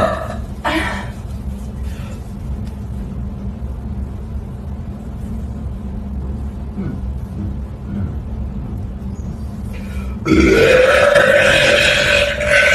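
A woman's long, loud burp with a wavering pitch begins about ten seconds in, after a stretch of low steady background hum. The tail of another burp ends right at the start.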